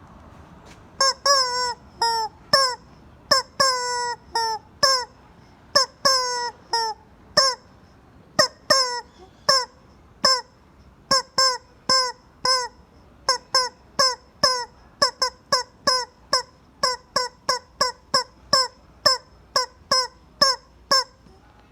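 Rubber chicken squeezed again and again, each squeeze a short honking squawk that drops in pitch. The squawks come in quick succession, getting shorter and faster, about two or three a second, in the second half.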